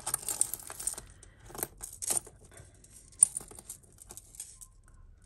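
Costume jewellery rustling and chinking as hands rummage through a pile of metal chains, earrings and beads, with a scatter of sharp clinks, the loudest about three seconds in; it dies away near the end.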